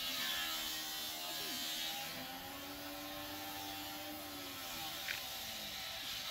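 A steady mechanical drone from a distant motor, with a hum that bends slightly in pitch in the middle, and one light click about five seconds in.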